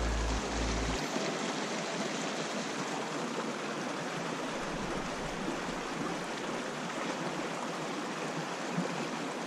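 Steady rush of a fast river flowing over and around granite boulders.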